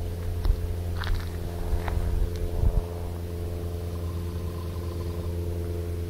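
A steady motor hum, even in pitch, with a few light clicks and taps in the first couple of seconds.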